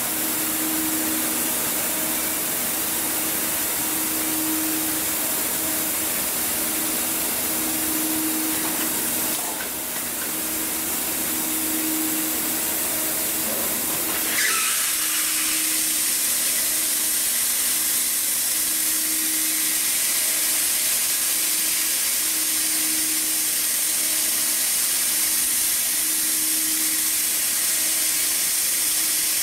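Hightex S700 hot air welding machine running, its hot air blowing with a steady hiss over a low hum that swells and fades every couple of seconds. About halfway through the hiss turns thinner and higher.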